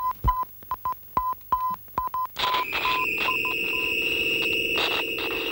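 A small handheld electronic gadget with an antenna making irregular short and longer beeps at one pitch, with clicks. About two and a half seconds in, it changes to a steady high electronic whine over a low buzz that holds.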